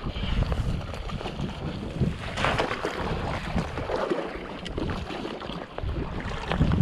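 Strong wind buffeting the microphone in an uneven low rumble, with a hooked rainbow trout splashing at the water's surface as it is reeled in.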